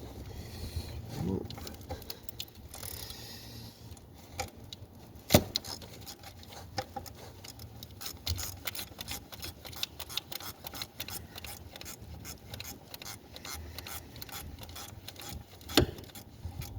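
Hand ratchet wrench with a 10 mm socket clicking in a fast, steady run as it turns the bolt on the back of a car alternator, with two sharper metallic knocks, one about five seconds in and one near the end.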